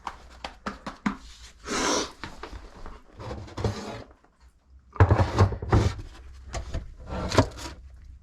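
Clatter, knocks and rubbing from things being handled at close range in a small room, with a cluster of heavy bumps about five seconds in.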